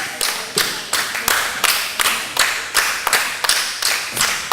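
Wrestling crowd clapping in unison, a steady rhythm of about three claps a second.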